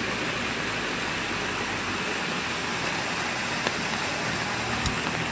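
Steady rushing, hissing water noise, with a few faint ticks in the second half.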